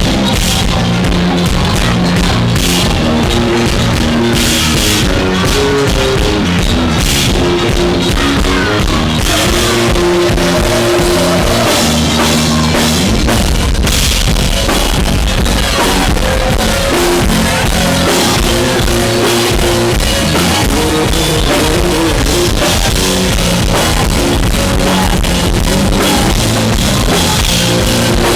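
Live band playing rock-leaning music, with drum kit, bass and guitar.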